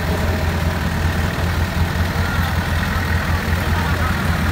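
A vehicle engine running steadily with an even low hum, with no revving or changes in pitch.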